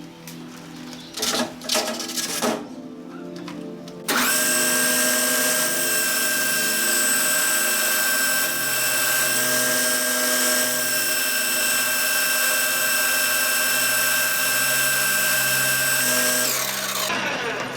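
Metal lathe spindle starting up suddenly with a steady high whine, running evenly for about twelve seconds on a steel drive shaft, then spinning down with falling pitch near the end. A few knocks come before it starts.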